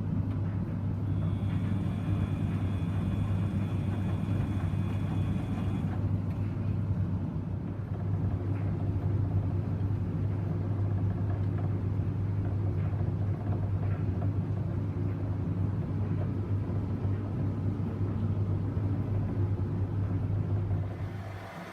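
Samsung washing machine running a 95°C boil-wash cycle: the drum motor turns with a steady low hum, with a faint high whine for a few seconds after the start. The hum drops away just before the end as the drum comes to a pause.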